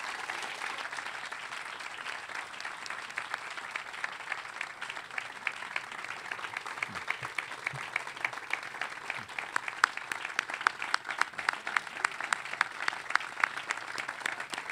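Audience applauding, with a few sharp, close hand claps standing out over the general clapping in the second half.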